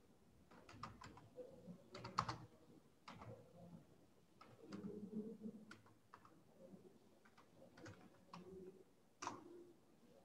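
Faint typing on a computer keyboard: irregular keystrokes in short runs, the sharpest clicks about two seconds in and near the end.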